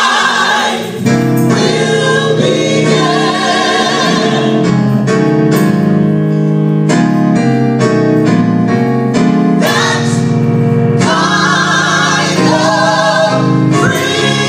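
Gospel choir singing in full harmony, holding long chords, with a brief break about a second in.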